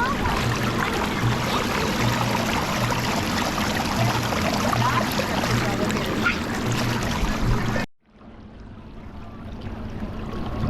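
Steady water-park din of many distant voices and running water. It cuts off abruptly about eight seconds in, and a quieter wash of water and wind builds back up.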